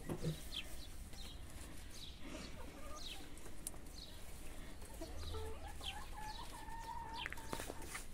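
Brown laying hens clucking, with short high calls throughout and one long drawn-out call over the last few seconds. A knock sounds just at the start.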